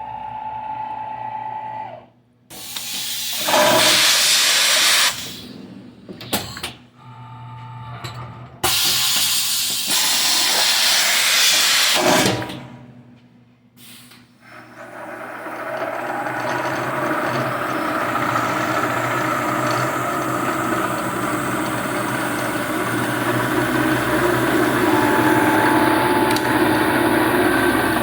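1980 Shizuoka AN-S CNC milling machine: a steady whine cuts out about two seconds in, then two long, loud hissing blasts of several seconds each. From about halfway on the mill runs with a steady, dense machining noise.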